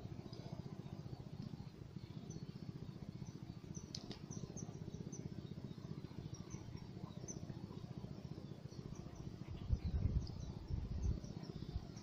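Small birds chirping in short, high notes over a low steady rumble, with a few muffled low thumps about ten seconds in.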